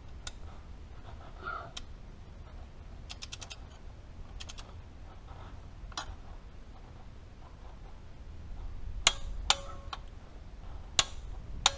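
Torque wrench ratcheting and clicking on the injector hold-down nuts of a first-gen Cummins 12-valve diesel as they are tightened to 45. There are scattered sharp clicks, quick runs of ratchet clicks about three and four and a half seconds in, and the loudest clicks near the end as the nuts reach the set torque.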